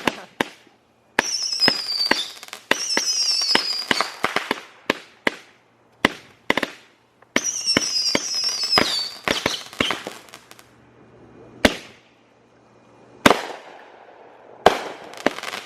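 Consumer firework cake firing: a rapid string of bangs, with three runs of crackling shots carrying whistles that fall in pitch, then a few spaced single bangs near the end.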